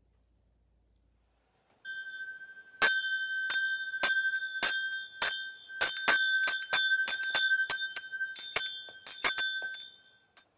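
A small bell struck over and over, about two strokes a second, each stroke ringing on at the same few high pitches. It starts softly about two seconds in and stops just before the end.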